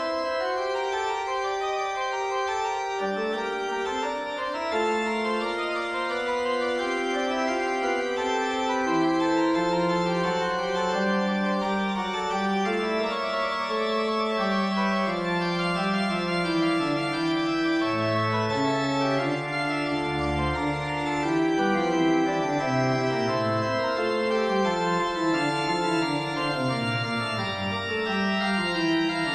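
Background music of slow, sustained keyboard chords with a moving melody line and no drums.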